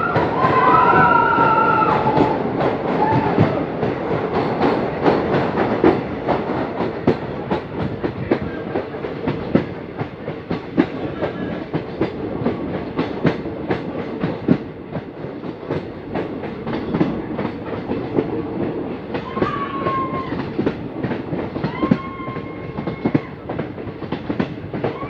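Train running along the track: a steady rumble with a rapid, uneven clickety-clack of wheels over the rail joints. A short wavering higher tone sounds at the start and a couple more near the end.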